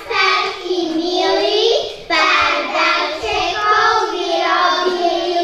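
A group of young children singing a song together in unison, in two held phrases with a short break about two seconds in.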